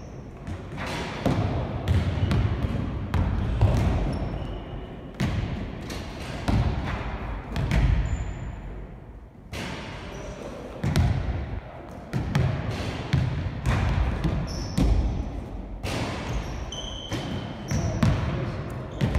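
Basketballs bouncing on a wooden gym floor in a large hall, with irregular thuds and a few short high squeaks.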